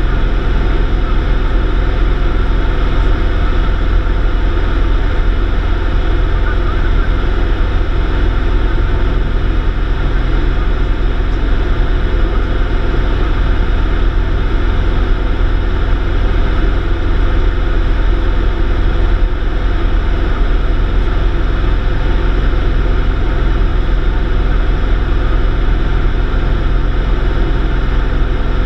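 Light single-engine piston aircraft's engine and propeller droning steadily in flight, heard from inside the cockpit.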